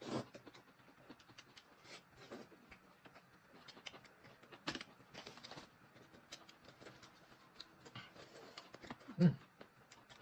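A person eating: chewing and lip-smacking, with scattered small wet clicks throughout and a brief murmur about nine seconds in.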